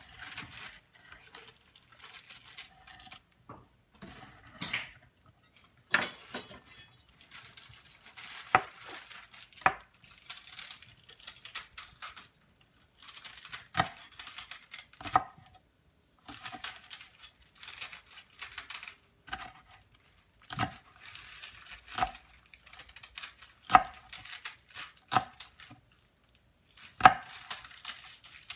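Chef's knife cutting a long green pepper on a wooden cutting board: irregular sharp knocks of the blade striking the board, some much louder than others, with softer slicing sounds between them.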